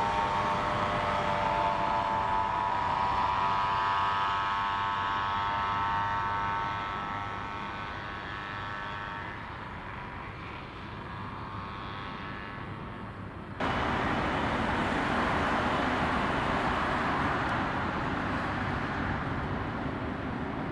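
Lufthansa Boeing 747-400's four turbofan engines at takeoff thrust: a loud whine of several close tones that fades as the jet lifts off and climbs away. About two-thirds of the way through, a sudden cut to an Airbus A330-300's Rolls-Royce Trent 700 turbofans at takeoff thrust on the runway, a rushing jet noise without the whine.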